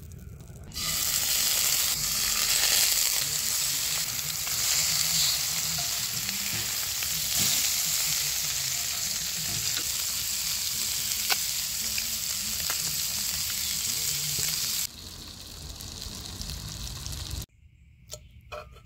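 Largemouth bass fillets frying in butter in a cast iron skillet: a steady hiss with scattered pops. It starts suddenly about a second in, turns quieter about fifteen seconds in, and stops near the end, leaving a few clicks.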